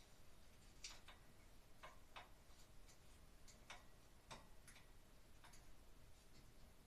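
Faint, irregular clicks and taps of small hardware being handled by hand overhead, about ten in all, spaced unevenly through the middle of the stretch.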